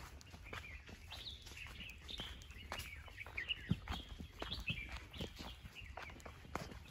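Small birds chirping with many short, quick calls in woodland, together with irregular footsteps on a leaf-covered dirt path; one step a little before the middle is the loudest.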